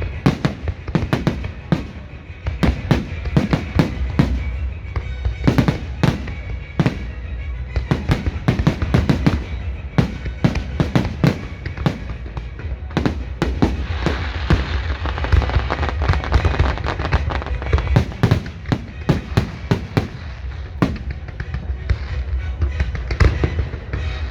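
Fireworks display: irregular bangs of shells bursting, several a second at times, with a stretch of dense crackling about two-thirds of the way through.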